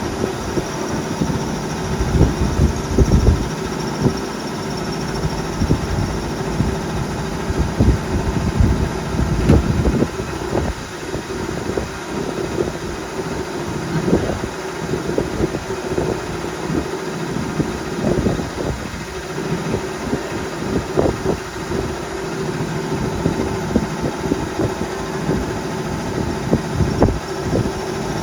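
Milling machine running, a steady motor hum with irregular low knocks.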